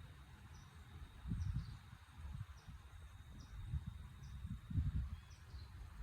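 Insect chirping: a short high chirp repeated a little under once a second over a faint steady high tone, with a few low rumbles on the microphone.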